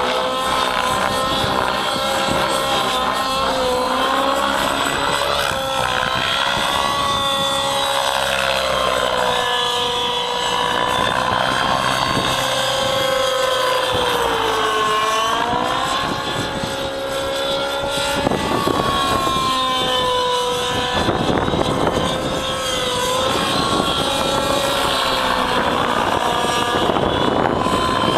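Align T-Rex 700 Nitro RC helicopter's two-stroke glow engine and rotor running at high speed in aerobatic flight, a steady engine note that wavers up and down in pitch with the manoeuvres and dips about halfway through.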